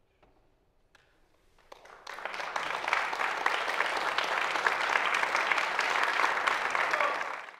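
Audience applause: a few scattered claps at first, swelling into full, dense clapping about two seconds in, then cut off abruptly near the end.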